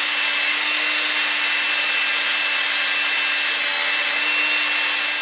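Cordless drill running at a steady speed, spinning a plastic toilet brush whose bristles scrub WD-40-soaked carbon deposits off a moped engine's piston. A constant motor hum over the rubbing hiss of the bristles, stopping near the end.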